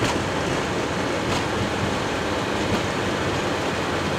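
Steady roar inside a Boeing 737-800 cockpit as the jet slows on its landing rollout on a wet runway: engine and airflow noise with a few faint ticks.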